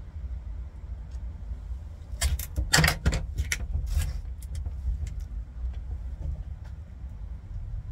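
A short run of metallic clicks and rattles, about two seconds long, starting about two seconds in, as metal fixture hardware is handled. Under it is a steady low rumble.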